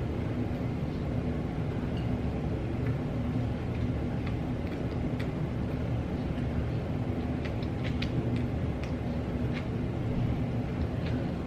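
Steady low hum of room background noise, with faint small clicks and smacks of eating scattered through it, more of them in the latter half.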